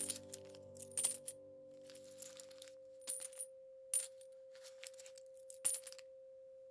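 Coins dropping and jingling in several separate bright clinks spread over a few seconds, over a single steady held tone near 528 Hz. Lower sustained music notes fade out in the first couple of seconds.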